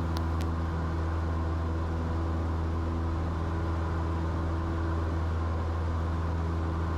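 Cessna 172's piston engine and propeller running steadily at climb power just after takeoff, a constant low drone heard from inside the cockpit.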